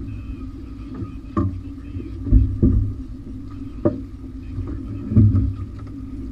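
Outboard motor running steadily at trolling speed, with a low hum under it, while about five sharp knocks and thumps sound on the boat, the loudest about two and a half and five seconds in, as a landing net is swung aboard.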